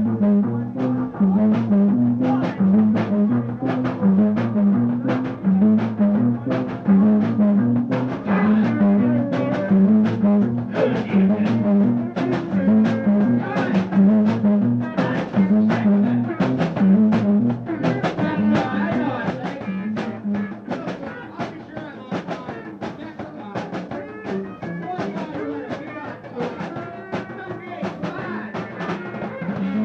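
Rock band playing a song: a repeating bass riff under a steady drum beat of about two hits a second, with guitar above. The music gets somewhat quieter a little past halfway.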